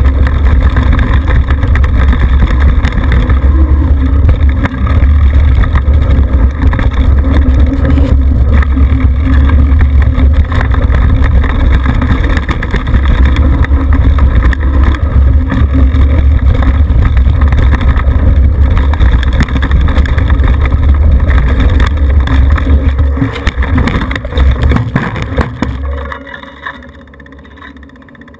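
Heavy wind buffeting on the bike-mounted camera's microphone, with tyre and trail rumble from a Trek Remedy mountain bike descending a dirt trail at speed. Near the end the rumble turns ragged and dies away as the bike crashes and comes to rest on its side.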